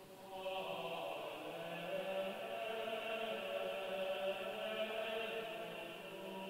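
Background music: slow, chant-like music of long held notes that shift gently in pitch.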